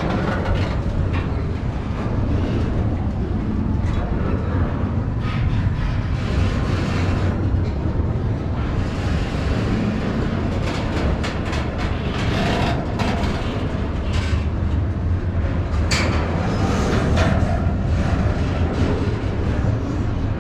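Double-stack intermodal freight cars rolling past at speed: a steady low rumble with irregular sharp clacks of wheels over the rail joints.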